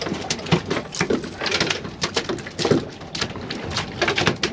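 Irregular knocks and slaps, about two a second.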